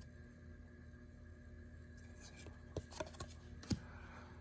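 Quiet room hum with a few soft clicks and rubs of trading cards being handled, the sharpest click a little before the end.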